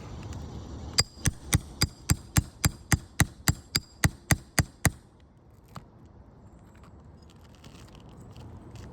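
A hammer striking metal in a quick, even series of about fifteen blows, about four a second, each with a short metallic ring; the blows stop suddenly about five seconds in, followed by one light click.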